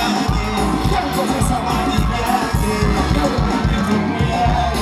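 Live band music with a steady beat.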